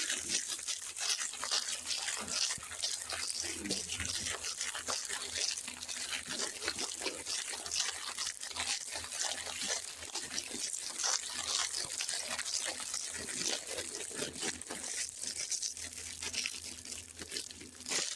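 Steady rustling and crackling, like packaging being handled and unwrapped.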